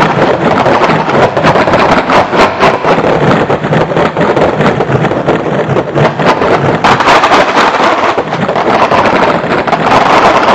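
Dense computer-generated electronic music: a loud, unbroken noisy texture packed with rapid crackling clicks, with no clear melody or beat.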